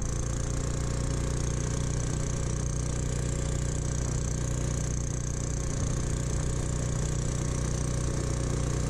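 Briggs & Stratton 5 HP single-cylinder go-kart engine running at a steady, even speed as the kart drives along.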